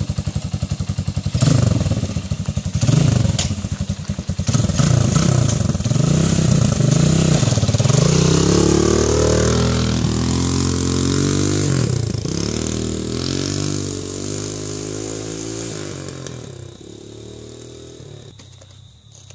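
Shineray 200cc air-cooled single-cylinder four-stroke engine in a Honda XR100 dirt bike running, revved up about a second and a half in as the bike pulls away. The revs climb and fall several times, then the sound fades steadily as the bike rides off into the distance.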